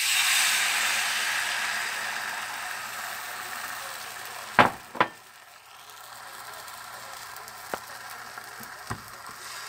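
Beaten egg and milk poured into a hot frying pan, with a sudden loud sizzle that slowly dies down as the mixture spreads. About halfway there are two sharp clicks half a second apart, and two fainter ones come near the end.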